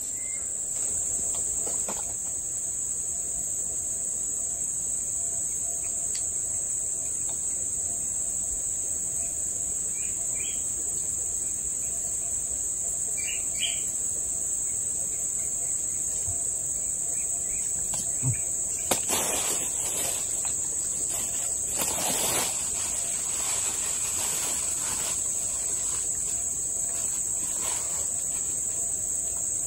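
A steady, high-pitched drone of insects runs throughout, with a few short bird chirps. A few brief noisy bursts stand out about two-thirds of the way through.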